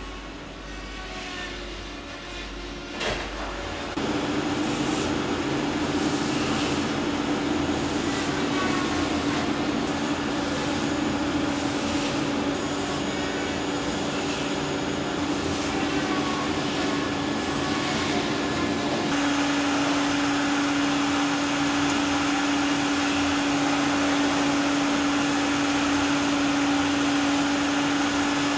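Steady hum and whine of electric motor-driven workshop machinery. It starts suddenly about four seconds in and shifts slightly in tone a little past halfway, when the pantograph engraving machine's cutter motor is running.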